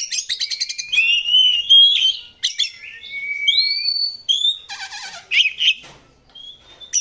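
An Oriental magpie-robin (kacer) singing a loud, varied song. Clear whistled glides mix with runs of rapid, harsh rattling trills, the rough phrases kacer keepers call "materi kasar".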